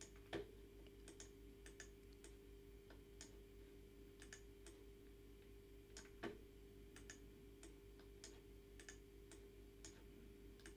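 Faint computer mouse clicks at irregular intervals, as points are placed and dragged on a curve, over a low steady electrical hum.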